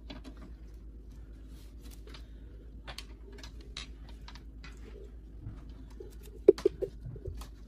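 Handling noise from a desktop computer case: scattered light clicks and taps, with a sharper cluster of knocks about six and a half seconds in.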